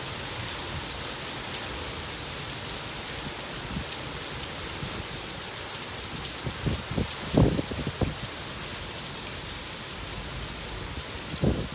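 Steady rain falling on wet pavement and parked cars, an even hiss. A few short, low thumps break through about two-thirds of the way in and again near the end.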